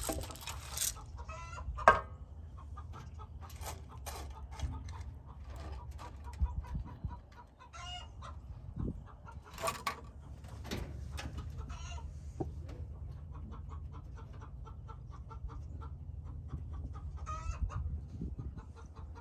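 Chickens clucking, with many scattered light clicks and taps over a steady low rumble.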